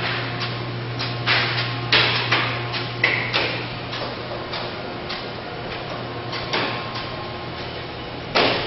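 Irregular sharp knocks, a dozen or so at uneven intervals, the strongest about two seconds in and near the end, over a steady low hum.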